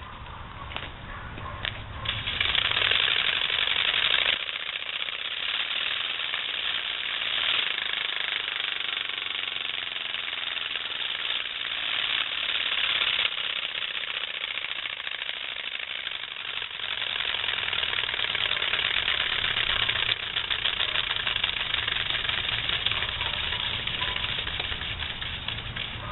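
Folded note card flapping against a road bike's spokes, making a rapid, continuous buzzing rattle that gets louder and quieter as the wheel speeds up and slows.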